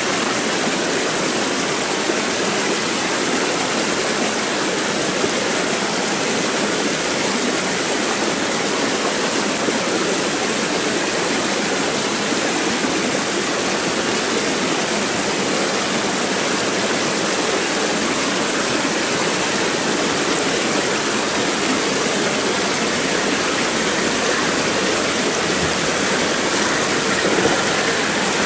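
Rocky mountain stream rushing steadily over stones, with a Nissan Patrol's engine faintly under the water as the off-roader drives down the streambed, getting a little louder near the end as it comes closer.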